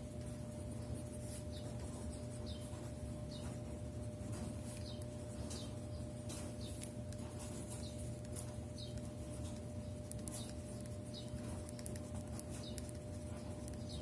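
Pen writing on ruled notebook paper: faint scratching strokes, with short high chirps recurring about once a second, over a steady low hum.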